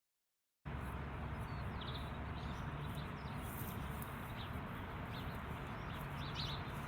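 Birds chirping in short scattered calls over a steady low rumble and hiss of outdoor background noise. The sound cuts in suddenly well under a second in.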